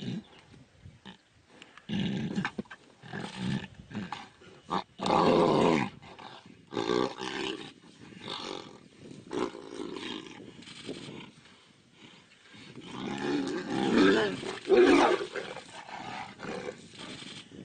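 Tigers growling and roaring in irregular outbursts while fighting, loudest about five seconds in and again about fifteen seconds in.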